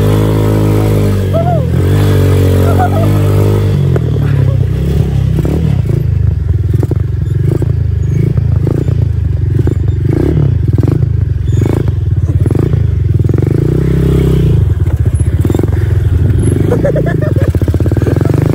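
ATV engine running under a rider, its pitch rising and falling over the first few seconds, then running steadily with repeated clattering knocks through the middle of the ride.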